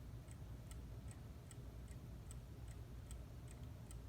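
Howard Miller bracket mantel clock's 1987 Hermle 340-020 mechanical movement ticking steadily and faintly, about two and a half ticks a second.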